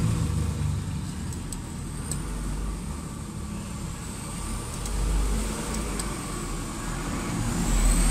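A few faint metallic ticks of an open-end wrench turning two locked 8 mm nuts, driving a threaded stud into a Bocar 34 PICT-3 carburetor body. Under them is a low background rumble that swells about five seconds in and again near the end.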